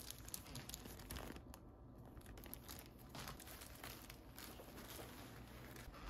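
Faint crinkling and rustling of items being handled and put into a fabric backpack, with irregular small ticks of the bag and its contents.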